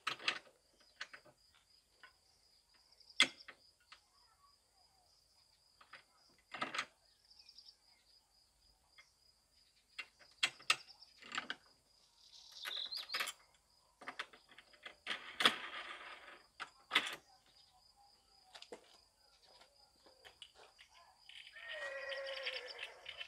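Steady high-pitched chirring of insects, with scattered short clicks and knocks of things being handled. Near the end comes a longer sound that falls in pitch.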